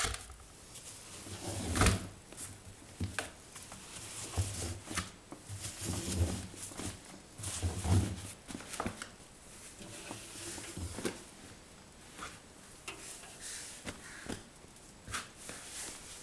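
Wet laundry being pulled by hand out of a front-loading washing machine drum and dropped into a plastic basin: irregular rustling of cloth with dull thumps and knocks, the loudest about two seconds and about eight seconds in.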